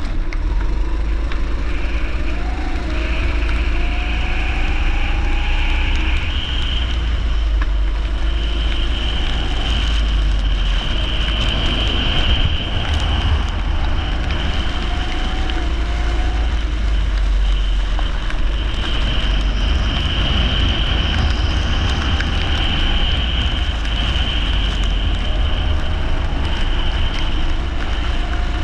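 Leisure kart engine running at race speed, its pitch rising several times as it accelerates, over a heavy steady low rumble.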